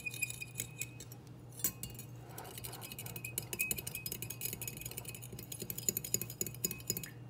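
A metal fork stirring sugar into water in a glass bowl, clinking lightly and rapidly against the glass.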